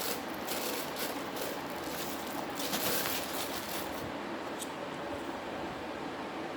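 Irregular rustling and crinkling as the hand blender's packaging is handled, busiest in the first three seconds, over a steady hiss.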